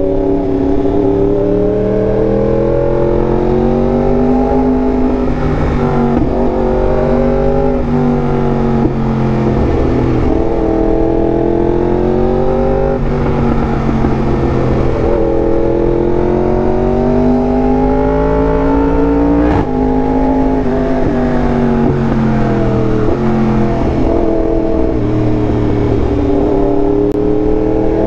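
Yamaha R1M's crossplane inline-four running through an SC Project exhaust while riding, the revs repeatedly rising and falling under throttle. A single sharp click cuts through about two-thirds of the way in.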